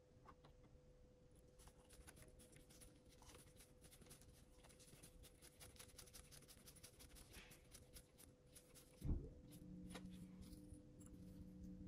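Faint clicking and scratching of small hand tools on small parts, with a louder knock about nine seconds in, after which a low steady hum begins.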